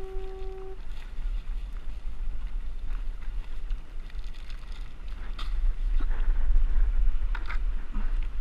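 Wind buffeting the microphone over water lapping around a kayak, with light knocks and splashes from about four to eight seconds in. A short, steady beep sounds right at the start.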